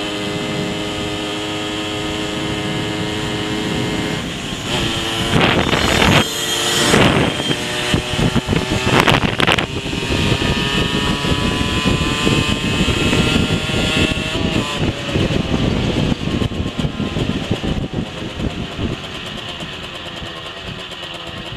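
Rieju SMX 50cc two-stroke moped engine running on the move, heard from the rider's helmet. It holds a steady note for about four seconds, then wind rushes over the microphone in loud gusts. After that the engine note climbs in pitch, dips, and climbs again.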